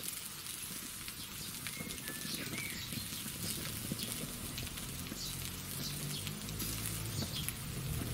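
Vegetables, cheese and sausages sizzling on a grill grate: a steady crackling hiss with scattered small pops. Low droning notes come in during the second half and grow louder toward the end.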